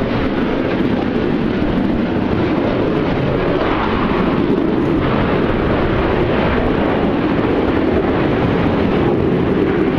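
Military jet aircraft flying over, a loud steady jet roar that swells a little toward the end.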